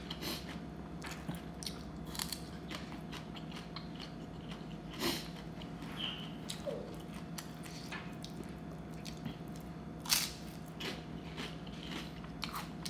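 Close-up chewing with sharp crisp crunches of fried pork cracklings (kaep mu) being bitten and eaten, the loudest crunch about ten seconds in.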